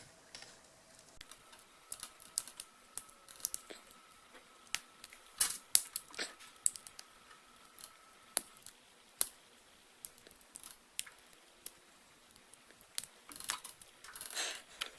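Small hard-plastic clicks and scrapes as the speaker housing of a Plantronics BackBeat Fit earbud is pried apart. Scattered light clicks, with a short run of scraping near the end.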